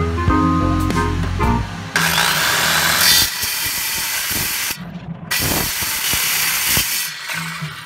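Makita circular saw cutting through a thick hardwood block, starting about two seconds in. The cutting noise drops out briefly near the middle, then runs on until about seven seconds in.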